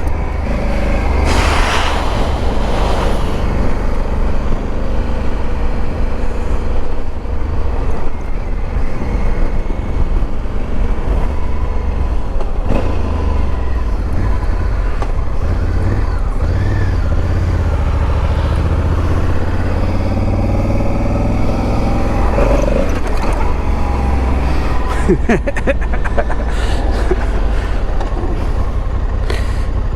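Honda CRF1100L Africa Twin's parallel-twin engine running under way, mixed with heavy low wind rumble on the microphone from riding. The sound stays steady, with a few light clicks near the end.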